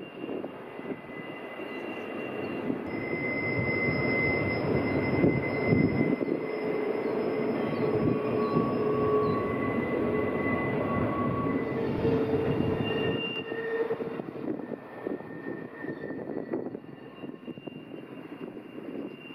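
Container cars of a long double-stack freight train rolling by with a steady rumble, growing louder towards the middle and fading near the end. High, steady wheel-squeal tones come and go on top, the sign of wheels grinding their flanges around a tight curve.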